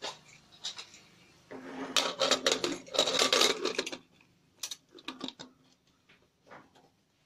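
Aluminium pressure cooker lid being fitted and closed: metal scraping and clattering for about two and a half seconds, then a few lighter metallic clicks and taps.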